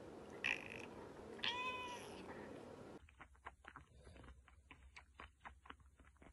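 A long-haired grey cat meows twice, a short call and then a clearer one that rises and falls in pitch. Then a tabby kitten sucks and chews on the tip of a crocheted toy bottle, making faint rapid soft clicks.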